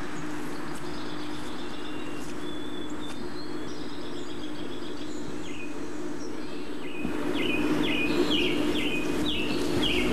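Steady loud hum of a Sony Betacam SP camcorder's tape transport (VTR), picked up by its own microphone and noisy with age, with birds chirping over it. From about seven seconds in, a bird repeats a short falling chirp about twice a second.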